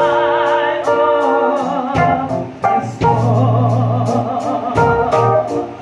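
A woman singing a gospel song with vibrato into a microphone, over sustained organ chords.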